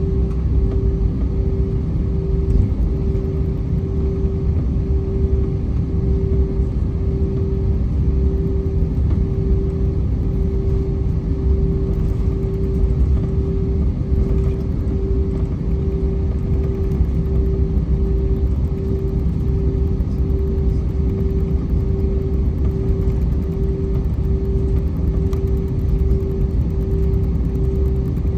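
Jet airliner cabin noise while taxiing: a steady low rumble from the engines and rolling gear, heard from inside the cabin, with a hum that pulses in level about one and a half times a second.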